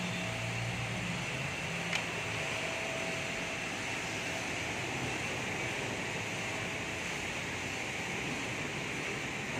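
Steady fan-like hiss of workshop background noise, with a single light click about two seconds in.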